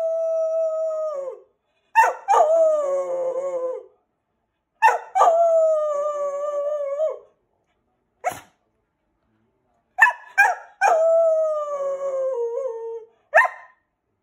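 Keeshond howling: several long howls of two to three seconds each, every one opening with short sharp yips and then held while sliding slowly down in pitch, with short yips in the pauses between.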